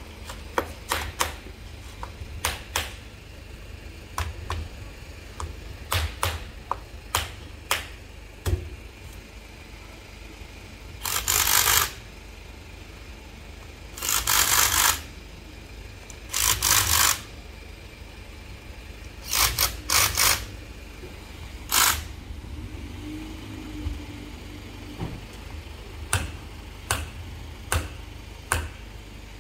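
Short hissing blasts of compressed air from a blow gun, about six of them, each half a second to a second long, spread across the middle of the stretch. Light clicks and knocks from parts and tools being handled fall between them, during work on an oil-soaked Mitsubishi HF-SP502 servo motor.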